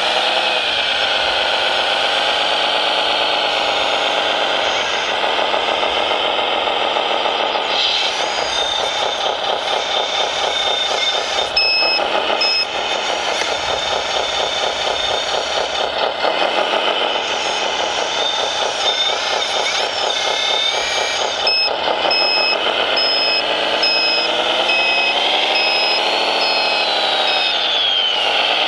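Large-scale RC construction vehicle running, its engine sound rising and falling in pitch, with a reversing beeper sounding in repeated short high beeps around the middle and through most of the second half.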